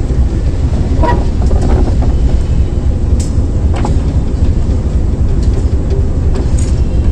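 Diesel-electric locomotive RGE-20 running slowly along the track: a loud, steady low engine rumble, with a few sharp clicks about one, three and four seconds in.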